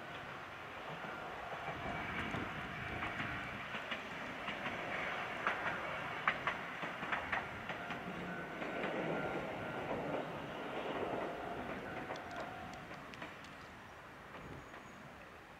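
Fukui Railway two-section articulated tram passing, its wheels clicking over the rail joints in a quick irregular run, the sound swelling and then fading away near the end.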